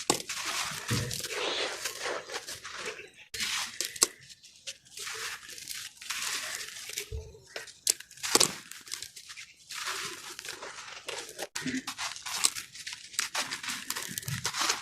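Chunks of soft yellow sand-cement being crushed and crumbled, an irregular run of crunches and crackles with a few sharp, louder cracks.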